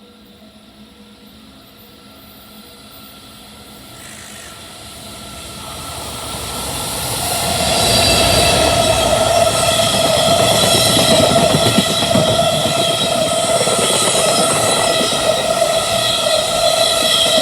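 Electric freight train approaching and passing at speed: the rumble of wheels on rail grows over about eight seconds, then the wagons go by in a loud, steady rush with a high whine running through it.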